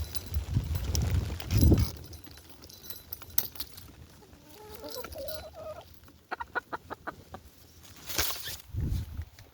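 Domestic hens clucking: a short rising call about five seconds in, then a quick run of about eight clucks just after six seconds. A low rumble in the first two seconds and a brief sharp noise a little after eight seconds.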